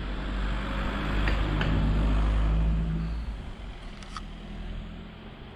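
Car engine running with road noise, a loud low rumble that eases off about three seconds in.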